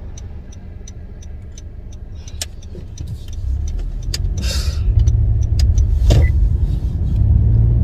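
Car engine and road noise heard inside the cabin while driving, getting louder about halfway through as the car picks up speed. Faint regular ticking runs underneath.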